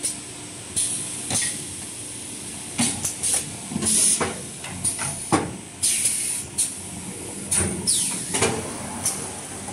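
XY-AI-653D double-layer 8-roll toilet-paper packing machine running. Its pneumatic cylinders let out repeated short hisses of exhaust air as the pushers move the rolls, mixed with sharp clunks and clacks of the mechanism, at an uneven rhythm of roughly one or two a second.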